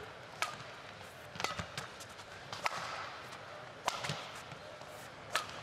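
Badminton rally: sharp racket strikes on the shuttlecock about once a second, six or so in all, over a low hum from the arena crowd.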